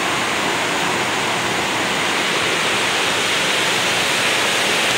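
Fast river rushing over rocks and rapids: a steady wash of water noise.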